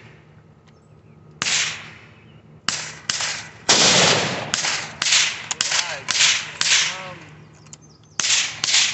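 Rifle gunshots: about eleven sharp shots at irregular intervals and of varying loudness. The loudest comes about four seconds in and has a long echoing tail.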